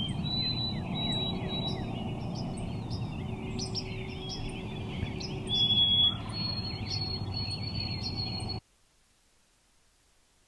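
Wild turkey gobbling amid many songbirds' high chirps and whistled notes, with the loudest burst about six seconds in, over a steady low rumble. The sound cuts off suddenly about two seconds before the end.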